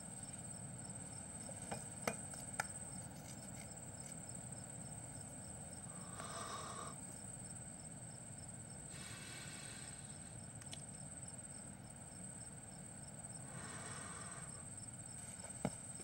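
Faint insect chirring ambience: a steady high trill, with three short, slightly louder bursts of chirping about six, nine and thirteen seconds in, and a few faint ticks early on.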